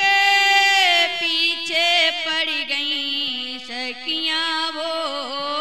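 A woman singing a Holi folk song. She holds a long high note at the start, then sings a melody with sliding ornaments over a steady held low note.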